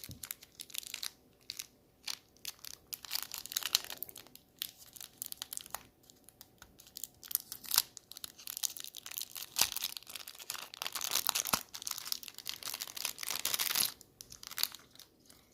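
Packaging wrapper being torn open and crinkled by hand, in irregular bursts of crackling with sharp clicks. A longer stretch of steady crinkling near the end stops abruptly.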